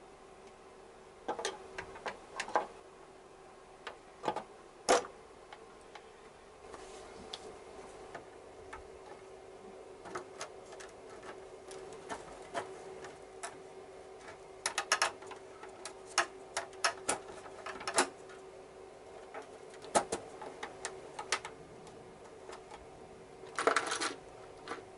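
Irregular clicks, taps and knocks of motorcycle tail-section plastics and the grab handle being handled and fitted to the frame, with a short cluster of rattling near the end. A faint steady hum runs underneath.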